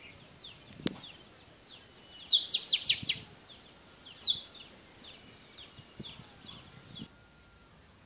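Oriental magpie-robin singing: a quick run of loud, steeply falling whistled notes about two seconds in and another about four seconds in, over softer chirps repeated through the rest. There is one sharp click about a second in.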